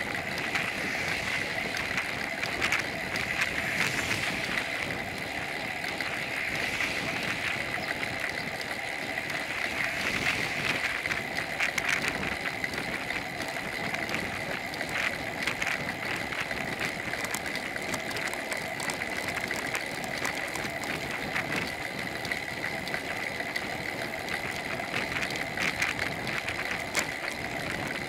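Bicycle riding along an asphalt road: a steady rush of wind and tyre noise with frequent small rattles and clicks from the bike and its rear-facing camera mount.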